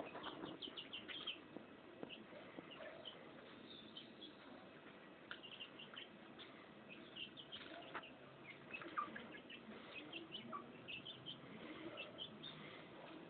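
Young chickens peeping faintly while they forage: many short, high chirps scattered irregularly throughout.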